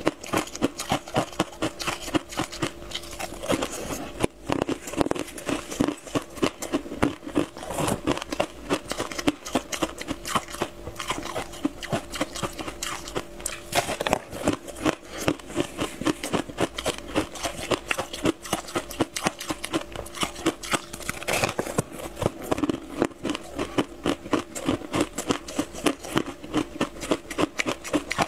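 Close-up chewing of a crisp, crumbly tartary buckwheat pastry: a steady run of quick, sharp crunches and wet mouth noises.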